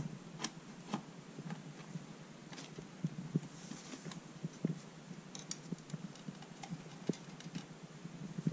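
Thin speaker wires and plastic speaker plugs being handled at an amplifier's rear sockets: irregular light clicks and rustles, with one sharper click at the very start.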